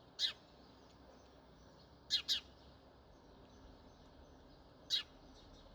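House sparrow chirping: four short, sharp chirps, one just after the start, a quick pair near the middle and one near the end, each sweeping down in pitch, with fainter chirping behind them.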